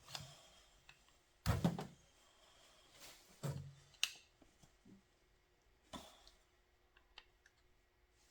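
Scattered knocks and clunks of tools and engine parts being handled while ignition coils are swapped on an engine, the loudest cluster about one and a half seconds in.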